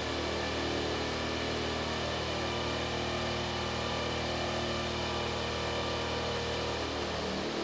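Combat robot Cobalt's spinning weapon running at speed, giving a steady, unbroken hum.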